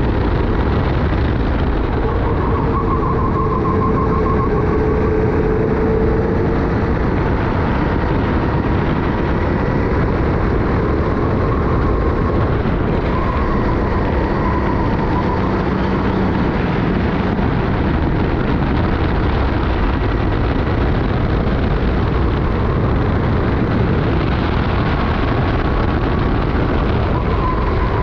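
Racing go-kart engine running at race speed, its note rising and falling a little through the corners. It sits under a heavy, steady rush of wind on a helmet chin-mounted camera's microphone.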